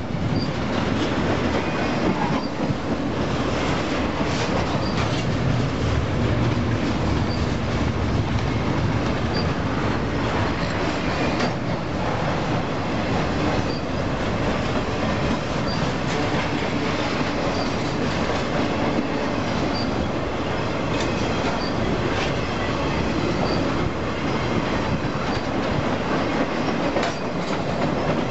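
Double-stack intermodal freight cars rolling past close by: a steady rumble of steel wheels on the rails, with occasional knocks.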